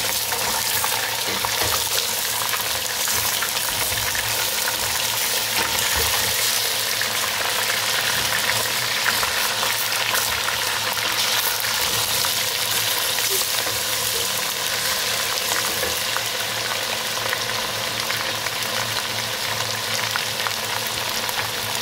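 Raw chicken pieces sizzling and crackling as they fry in hot ghee with browned onions in a steel pot. A slotted spatula stirs and scrapes through them. This is the first searing of the chicken, just after it goes into the oil.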